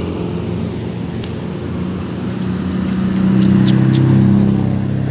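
A motor vehicle's engine running on the road, growing louder about three seconds in as it passes close by, then easing off near the end.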